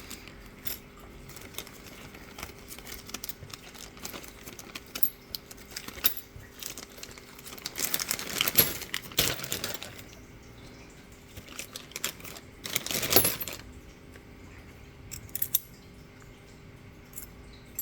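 Small metal pins and parts of a disassembled ASSA D12 lock clicking and clinking as they are handled. There is a louder clatter about halfway through and another a few seconds later.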